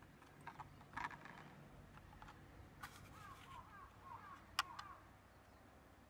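Quiet, light clicks and taps as paper nautilus shells are handled on a wooden table, the sharpest about two-thirds of the way in. A few faint chirps come in quick succession in the middle.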